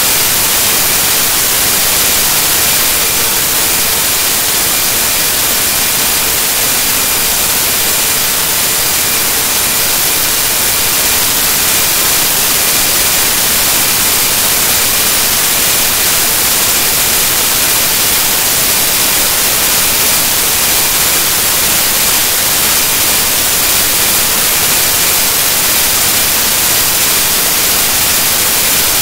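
Loud, steady hiss of static, strongest in the high frequencies, with no breaks or other events: the noise of a corrupted stretch of recording.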